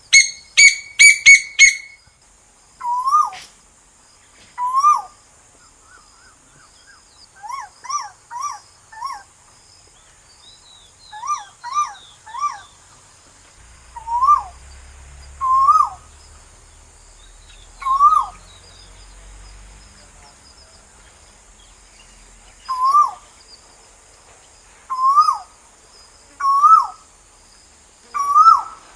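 Koel calling: a single rising-then-falling note repeated every couple of seconds, sometimes in quick runs of three. It opens with a loud burst of five rapid, higher notes. A steady high insect drone runs underneath.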